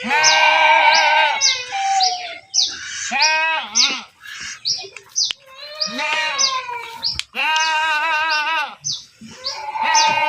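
Goats bleating: several long, wavering bleats one after another, with a small bird chirping steadily in the background in short, high, falling chirps two to three times a second.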